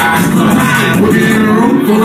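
Live hip-hop concert: a rapper performing over a loud backing track through the club's sound system, with a steady beat.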